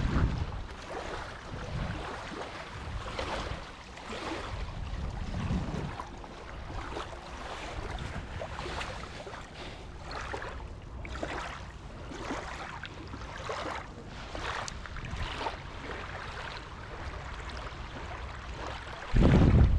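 Footsteps crunching through dry autumn leaves on a woodland trail, a crackly step about once a second. Near the end a short, loud low rumble of wind buffets the microphone.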